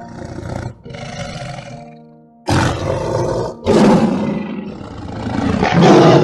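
A big cat roaring, about five roars in a row with the later ones loudest, over faint background music.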